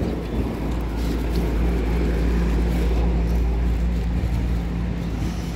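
A motor vehicle's engine running close by, a low steady drone that swells to its loudest about halfway through and then eases off.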